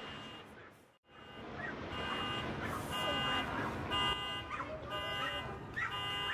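The low rumble of a building implosion dies away in the first second and cuts out briefly. Then a car alarm sounds in short, repeated electronic tones.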